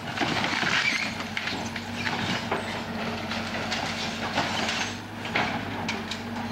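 A heavy demolition machine runs with a steady engine hum. Over it come repeated irregular cracking and crunching as the burnt wooden cabin structure is broken apart.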